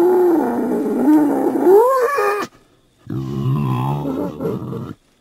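Wild boar calling: a long drawn-out call held for about two and a half seconds, rising in pitch near its end and cutting off abruptly, then after a short pause a second, lower-pitched call lasting about two seconds.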